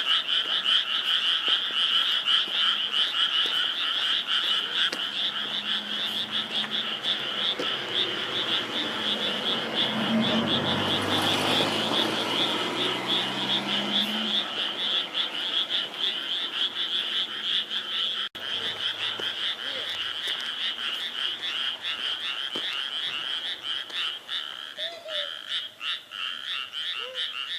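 A dense, continuous chorus of many frogs calling from a rice paddy, rapid overlapping high-pitched croaks with no let-up. About a third of the way in, a low rumble swells and fades over a few seconds beneath the chorus.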